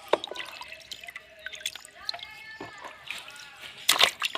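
Shallow water dripping and splashing in short, irregular bursts, with the loudest burst about four seconds in.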